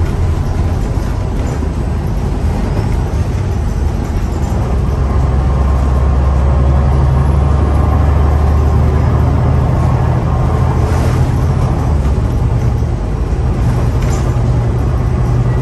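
City bus heard from inside the passenger cabin: engine and drivetrain running with a steady low drone over road noise as it drives. The drone grows louder about five seconds in and eases back after about ten seconds.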